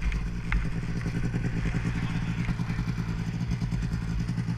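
Snowmobile engine running steadily at a low, even speed, judged to be fine after the machine was rolled back upright. A single sharp click about half a second in.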